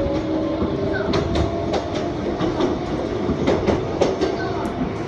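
Former Tokyu electric commuter car running, heard from inside the cabin: a faint motor whine rises slightly in pitch at first, then the wheels clack irregularly over rail joints.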